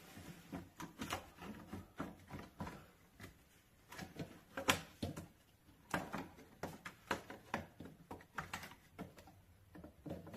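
Irregular light clicks and knocks of a small plastic fan propeller being handled and fitted back onto the motor shaft of a refrigerator's ventilation fan, a sharper knock about halfway through.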